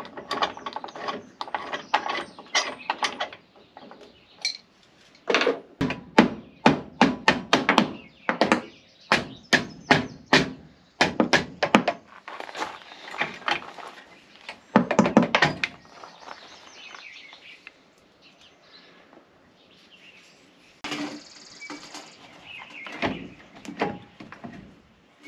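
Hand wrench working bolts on a galvanized steel boat-trailer winch stand: quick runs of ratchet clicks and metal knocks, stopping and starting as the wrench is reset.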